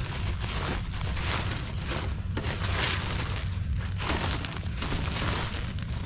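Woven polypropylene sacks rustling and crinkling in irregular swishes as they are handled and smoothed flat, over a steady low rumble.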